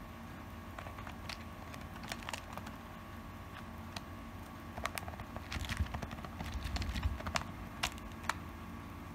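Scattered light taps and clicks of a Java sparrow's beak and feet on cloth slippers as it pecks and hops about, coming more thickly about five seconds in.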